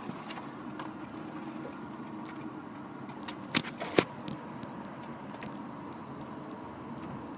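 Steady cabin noise of a car on the move, with a few sharp clicks about halfway through.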